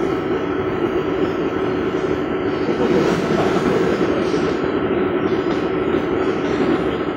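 Steady rumbling noise with a constant low hum running through it, loud and unbroken, like a train heard from inside a carriage.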